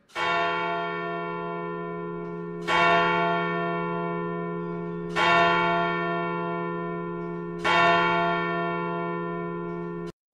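A bell struck four times, about every two and a half seconds, each stroke ringing on and slowly fading into the next. It cuts off suddenly just before the end.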